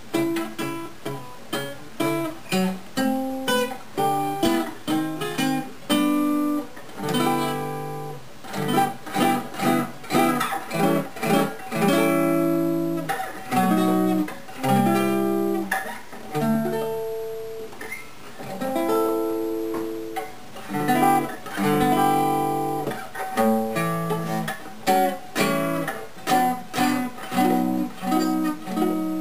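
Gibson L-48 archtop acoustic guitar played solo in a loose, noodling way: a steady run of picked single notes and strummed chords.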